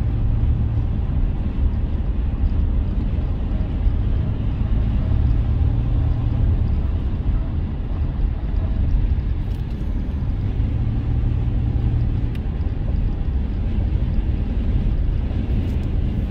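Steady low rumble of a car driving at highway speed, heard from inside the cabin.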